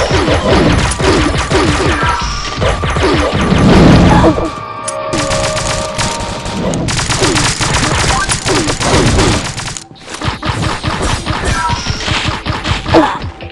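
Fireworks going off in a dense, rapid volley of bangs and crackles, with a short lull about a third of the way in and another near the end.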